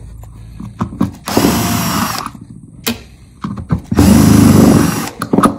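Cordless power driver backing out two screws from a pole saw gear-head clamp, running in two bursts of about a second each, the second louder, with a few small clicks between.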